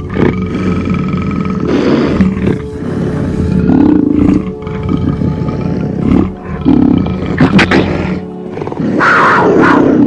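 A big cat roaring and growling in repeated bursts, about five times, over background music with steady held tones.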